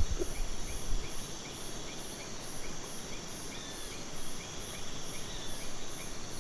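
Insect chorus: a high pulsing trill about three times a second over a steady high buzz, with softer chirps keeping the same rhythm.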